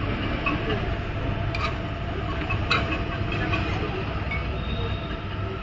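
Steady low rumble of background noise, with a couple of faint clinks about one and a half and three seconds in.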